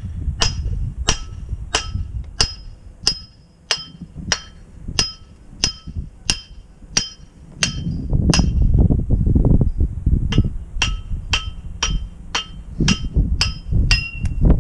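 Hammer striking metal to drive a roll pin out of a brush hog driveshaft yoke. The blows are steady and ringing, a bit under two a second. They pause for about two seconds past the middle, then resume slightly faster.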